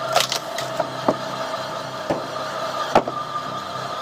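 Cone (screw) log splitter driven by a 3 kW motor running steadily with a hum, with several sharp cracks of wood splitting as the conical head bores into the log, the loudest about three seconds in.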